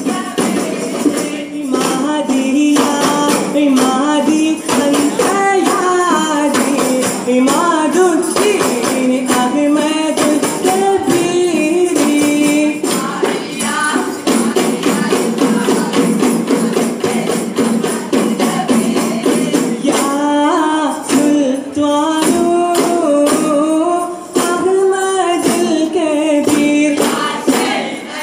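Arabanamuttu: a group of arabana frame drums beaten together in a steady rhythm, with voices singing a chant-like song in unison over them. The singing drops away for several seconds in the middle, leaving the drums, then comes back.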